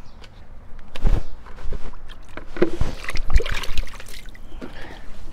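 Water splashing and sloshing with several irregular knocks, starting about a second in.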